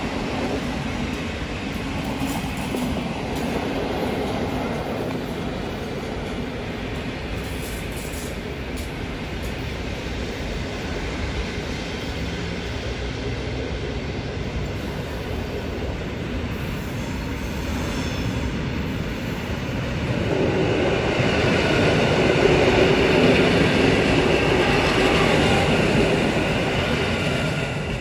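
Passenger trains running through a station: Intercity coaches rolling over the tracks, then a red passenger train drawing in and passing close, its rumble growing louder from about twenty seconds in and easing off near the end.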